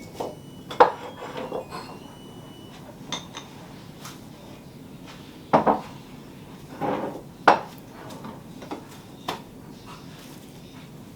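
Hard objects being handled and set down: scattered clinks and knocks, about a dozen, with the sharpest about a second, five and a half and seven and a half seconds in. A few of the early ones ring briefly.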